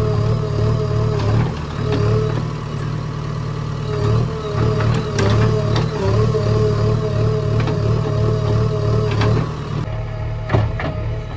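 JCB 3DX backhoe loader's diesel engine running under load as the backhoe digs into a dung heap, with a wavering whine that rises and falls as the arm works. A few sharp knocks, the loudest about ten and a half seconds in.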